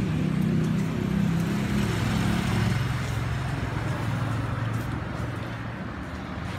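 A steady low engine hum, like a motor vehicle running, that eases off about five seconds in.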